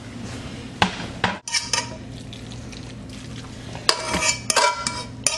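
A metal utensil knocking and scraping against a wok as pasta and sauce are scraped out into a glass bowl: two sharp knocks about a second in, then a quick run of ringing clinks near the end, over a steady low hum.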